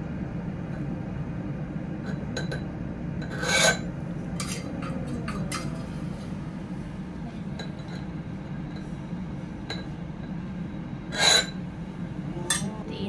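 Tableside cooking and tableware sounds over a steady low hum: light clinks of utensils and two short, loud scrapes, about a third of the way in and near the end.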